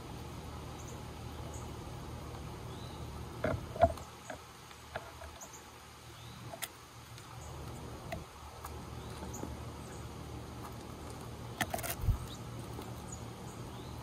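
Bird-feeder ambience: faint, short bird chirps and a few sharp taps and clicks over a steady low hum. The loudest clicks come about four seconds in and again near twelve seconds.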